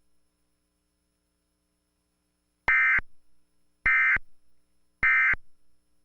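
Emergency Alert System digital data tones: three short, identical buzzy bursts about a second apart, starting a little under three seconds in. Short triple bursts like these are the SAME end-of-message signal that closes an alert.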